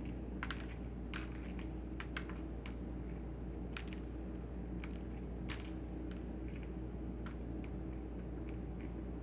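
Irregular small crackles and clicks of a cracked hard-boiled egg's shell being picked and peeled off by hand, over a steady low hum.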